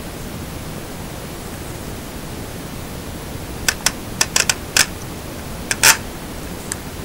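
Headband sliders of JustBeats on-ear headphones being pulled out and adjusted, clicking through their notches: about eight sharp clicks over a couple of seconds, starting about halfway through, over a steady hiss.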